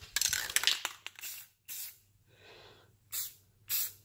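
Aerosol spray paint can hissing: one longer burst of spray, then four short puffs.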